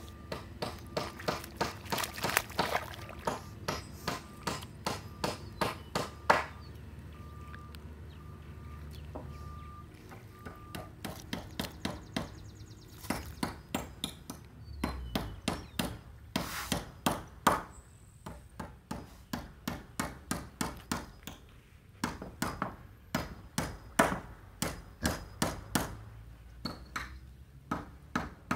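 Sharp knocks, like hammer blows, repeated about three a second in long runs, thinning out about seven to twelve seconds in and pausing briefly near the end.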